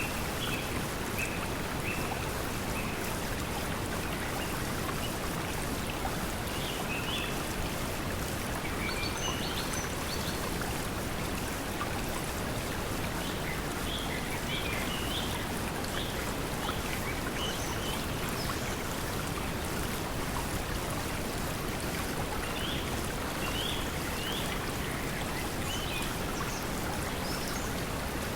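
Steady pink noise mixed with flowing water, with small birds chirping in short calls here and there.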